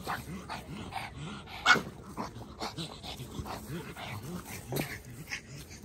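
Pugs play-fighting, making many short throaty growls and grunts, with one louder, sharper call about one and a half seconds in.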